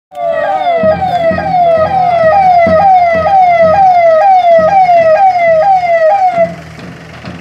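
Electronic vehicle siren sounding a repeating yelp: a loud tone that jumps up and slides down about twice a second, stopping near the end.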